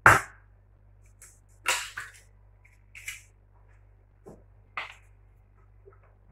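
Stirring warmed milk, yeast and egg together in a bowl for bread dough: a sharp knock at the start, then scattered short clinks and scrapes of the utensil against the bowl.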